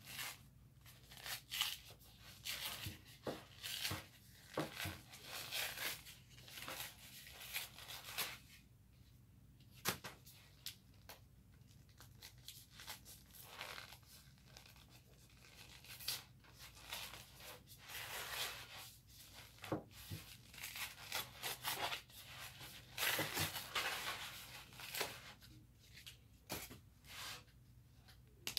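Paper corn starch box tearing and crinkling as it is peeled away from a block of oven-baked cornstarch, in irregular bursts with short pauses and a few light clicks.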